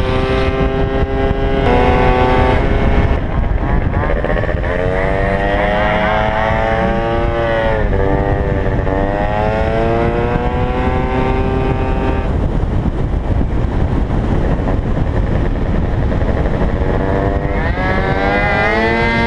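Gilera Runner FX scooter's 172cc single-cylinder two-stroke engine running hard on track, its note climbing as the throttle is held open, dropping sharply about eight seconds in, then climbing again near the end. A steady wind rush sits under the engine throughout.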